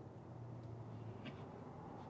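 Knife cutting through a crusty round loaf of beer bread, with faint crackling of the crust and a few soft ticks. A low steady hum runs underneath.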